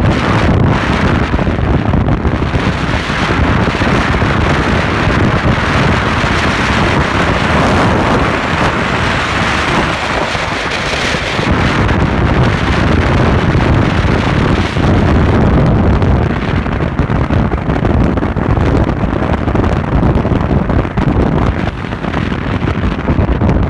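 Wind buffeting the microphone of a phone held in a moving car, over steady road noise from the car.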